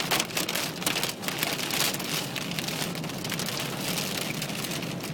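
Wind-driven mud and grit pelting the outside of a van, heard from inside the cabin as a dense, continuous patter over the rush of strong wind.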